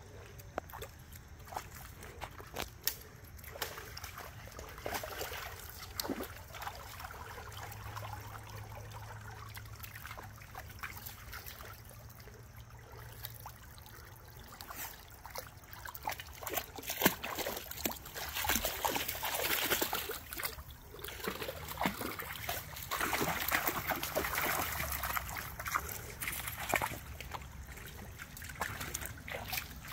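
Shallow creek water trickling over rocks, with splashing and sloshing as dogs wade through it, louder and busier in the second half.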